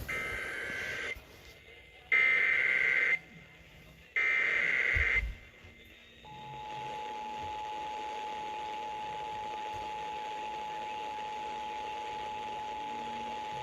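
Emergency Alert System (SAME) header: three one-second bursts of two-pitch data tones, about a second apart, encoding a new alert. About six seconds in, a steady single-pitched attention tone starts and holds, signalling that the spoken warning is about to begin.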